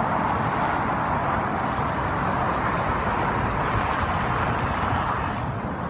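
Dense multi-lane city traffic: many cars passing in a steady, even wash of noise.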